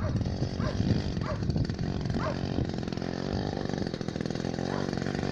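Two-stroke Druzhba chainsaw engine running steadily, driving a homemade snowmobile. A few short high chirps sound over it in the first couple of seconds.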